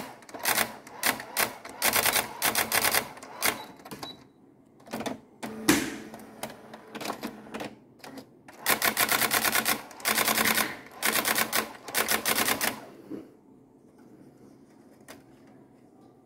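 Brother electronic daisywheel typewriter printing: two long runs of rapid, sharp print-hammer strikes with scattered single strikes between, stopping about thirteen seconds in. The machine strikes but leaves the page blank.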